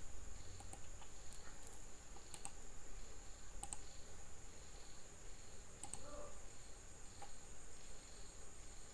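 Scattered sharp clicks of a computer mouse and keyboard being worked at a desk, a few seconds apart. A faint high chirp repeats steadily underneath, with a steady high whine.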